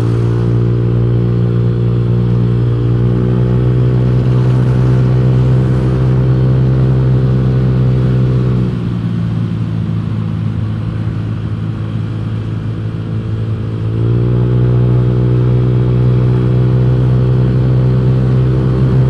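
Honda Vario scooter's single-cylinder four-stroke engine running steadily under throttle while riding. Somewhat under halfway through the engine note drops lower and quieter as the throttle eases, then it picks back up to the higher steady pitch about five seconds later.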